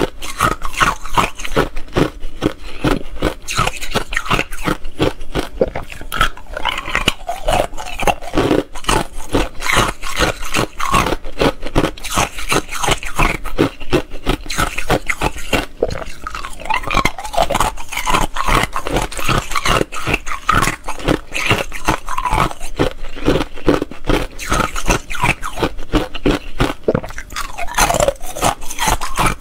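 Thin ice cubes being bitten and chewed close to the microphone: rapid, dense crunching and crackling.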